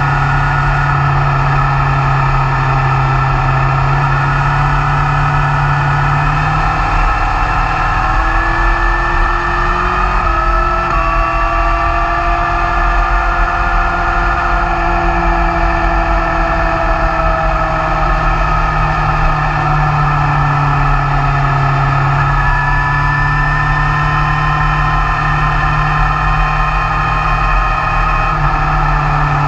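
BMW S1000R's inline-four engine running at road speed over a steady rush of wind and road noise. About a third of the way in, the engine note climbs, then eases back down over several seconds before settling steady again.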